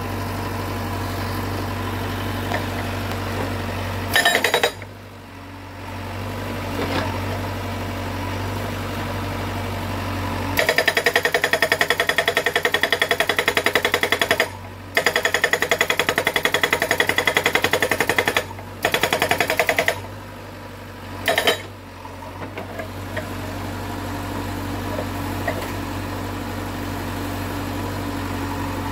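Korean SH43 hydraulic breaker hammering rock with rapid, evenly spaced blows, several a second, over the steady drone of the carrier machine's engine. There is a short burst about four seconds in, then long runs of hammering through the middle broken by brief pauses, and one more short burst after them.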